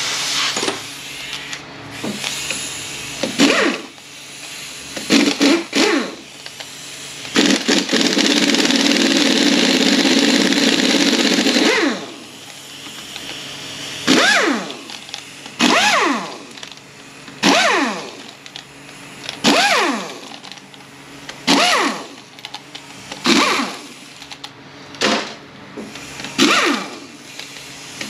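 Power tool running out Torx case bolts on an FW6AEL automatic transmission. There is one long steady run near a third of the way in, then a string of short bursts about every two seconds, each whine falling in pitch.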